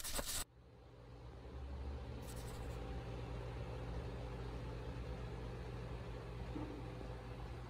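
A short burst of noise right at the start, then a steady low hum with a faint hiss that swells in over the first two seconds and holds level.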